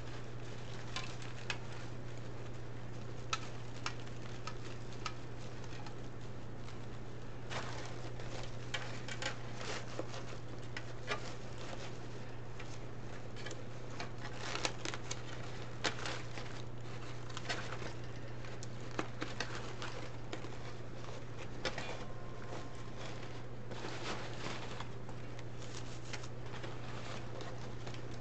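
Deco mesh and ribbon rustling and crinkling, with scattered light clicks and taps, as hands work cable ties through the mesh to fasten a sign onto the wreath. A steady low hum lies underneath.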